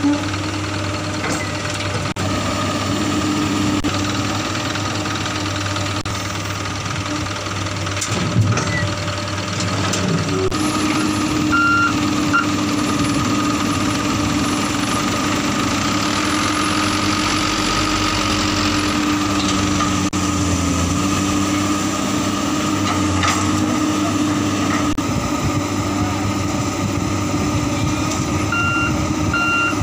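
Komatsu PC200 excavator's diesel engine running steadily under working load, a little louder from about ten seconds in. A back-up alarm beeps briefly about twelve seconds in and starts again near the end.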